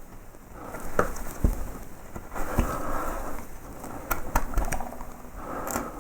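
Small hand carving tools paring wood in short scraping cuts, with a few sharp light clicks and knocks in between.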